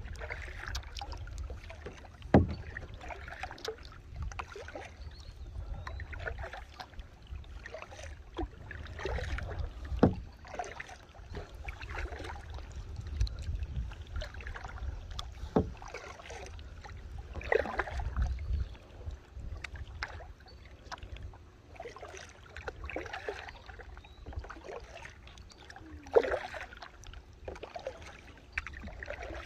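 Kayak paddling: paddle blades dipping and splashing in the water every few seconds, with a few sharp knocks, over a steady low rumble.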